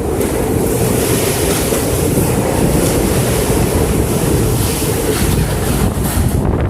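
Strong typhoon wind gusting without letup and buffeting the microphone: a loud, dense rush heavy in the low end.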